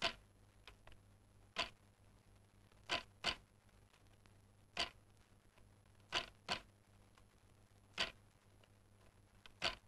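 Sharp knocks from a handloom, one every second or so and sometimes two in quick succession, over a faint steady low hum.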